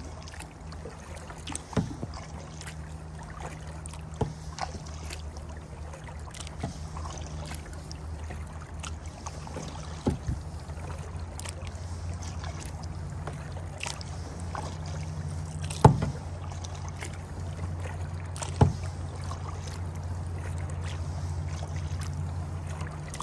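Kayak paddling: irregular paddle splashes and sharp knocks over a steady low rumble, with two louder knocks about two-thirds of the way through.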